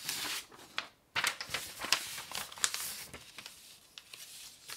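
Sheets of paper being handled and slid on a desk: a short rustle, a brief pause, then about two seconds of rustling with sharp crackles that fades out near the end.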